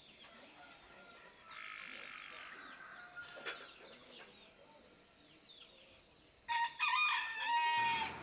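Rooster crowing once, loud and drawn out, about six and a half seconds in. Before it there are faint bird chirps over a quiet rural background.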